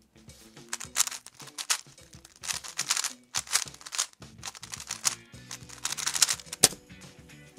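A Valk 3 Power 3x3 speed cube turned fast during a solve: rapid plastic clacking of the layers in quick flurries with short pauses. Background music plays underneath.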